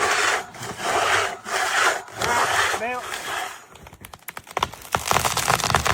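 Rhythmic back-and-forth scraping strokes, about two a second, that stop about three and a half seconds in. A patter of clicks follows, then a steadier rumbling noise near the end.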